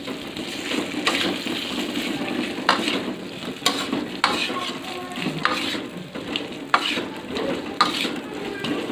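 A utensil stirring and scraping in a pan of fried fish and galangal spice paste cooking over low heat, with a sizzle and irregular knocks of the utensil against the pan.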